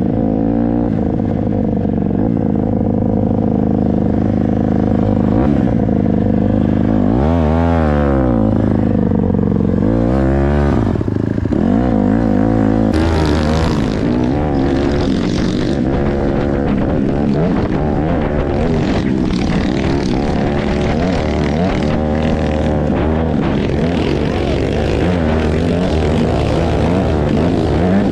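Small four-stroke dirt bike engine running on a trail ride, revving up and down as it rides, with marked swoops in pitch about seven and ten seconds in.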